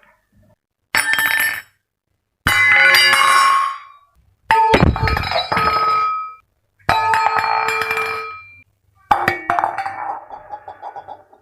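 Metal utensils dropped one after another onto a hard surface, about five separate drops, each a sharp clatter with a ringing metallic tone, cut off abruptly between drops. The last one bounces and rattles in a string of fading taps before coming to rest.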